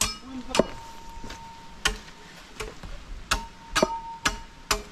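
Machete chopping into a green bamboo tube, cutting the hole for a bamboo cannon: about seven sharp strikes at uneven intervals, some leaving a short ringing tone from the hollow bamboo.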